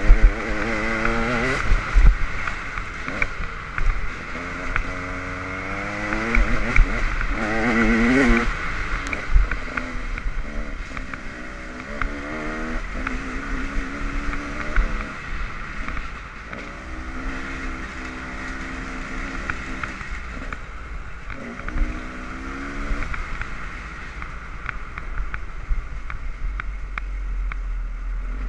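Dirt bike engine revving up and easing off again and again, its pitch climbing and dropping every few seconds, with a few low thumps.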